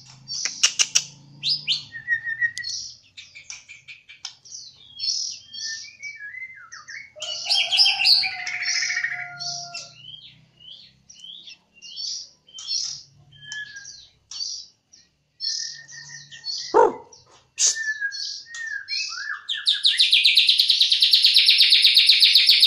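White-rumped shama (murai batu Jambi) singing a varied song of short whistled and chattering phrases with brief pauses. About 20 s in it breaks into a loud, fast, steady trill, the canary imitation (isian kenari) for which this bird is prized.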